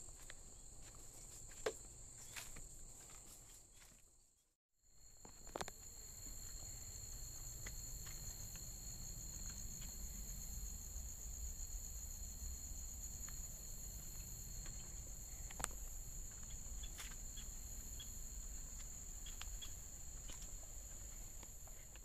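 Insects trilling steadily in a high, even buzz, with scattered light taps and a low rumble; the sound cuts out briefly about four and a half seconds in.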